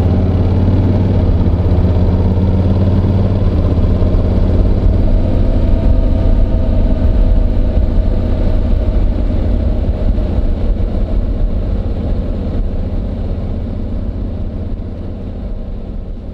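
Honda NC750X's parallel-twin engine running, heard muffled from a microphone in a jacket pocket, with the fabric rubbing against it. The sound fades steadily over the last few seconds.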